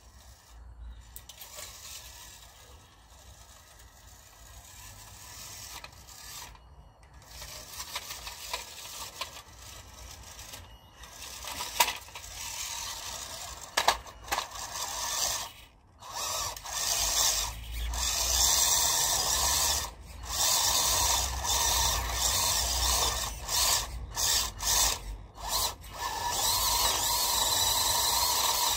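WPL B-1 1/16-scale RC military truck's electric motor and gearbox whirring as it crawls over block paving. It grows louder as it approaches, with a couple of sharp knocks near the middle, then comes in loud stop-start bursts over the second half.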